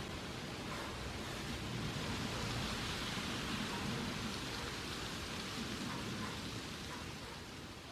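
Steady hiss of background noise with a low rumble underneath, swelling a little a few seconds in.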